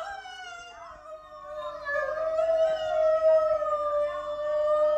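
A wolf-like dog howling one long howl that swells louder about two seconds in and sinks a little in pitch near the end.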